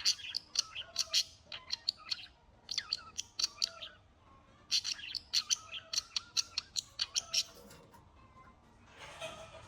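Bird chirping rapidly in several bouts of quick, high chirps, with short pauses between bouts. A brief noise near the end.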